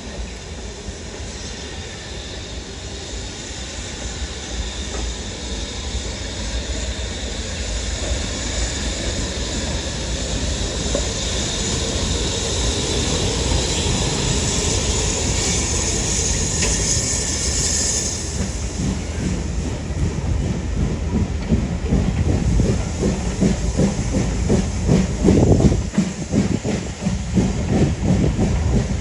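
A heritage train drawing closer and passing: a steady hiss grows louder through the first half, then a rhythmic clatter of wheels over the rail joints takes over, loudest about three-quarters of the way through.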